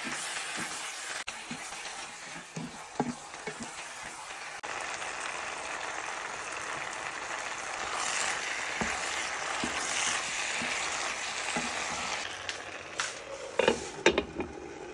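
Food sizzling in a frying pan as shell pasta with ground meat and tomatoes is stirred with a wooden spoon, with soft knocks of the spoon. Near the end, a few sharp clatters as the lid is set on the pan.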